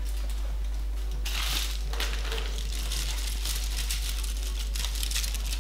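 Wrapping crinkling and rustling as it is handled, in irregular bursts, the loudest about a second and a half in, over a steady low hum.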